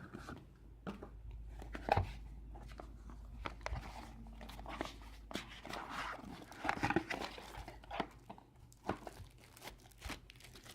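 A small product box being opened and its packaging handled: scattered taps, scrapes and crinkles, with a sharper knock about two seconds in.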